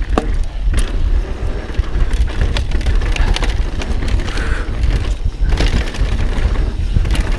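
Mountain bike rolling fast down a dry dirt trail: tyres crunching over loose dirt and small rocks, with frequent sharp clicks and rattles from the bike and wind buffeting the microphone.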